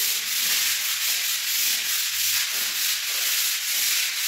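Hand sanding of dried wall putty: a sanding block with abrasive paper rubbed back and forth over the plastered wall. It makes a dry, rasping hiss in quick, even strokes, about two a second.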